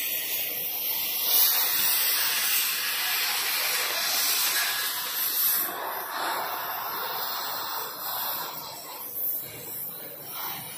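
Loud, steady hissing noise, strongest over the first six seconds and then dropping back to a lower hiss.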